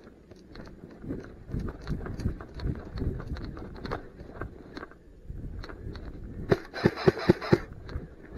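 Footsteps crunching through snow and dry grass stalks, uneven and a step or two a second. About six and a half seconds in comes a quick run of five or six louder, sharper crunches.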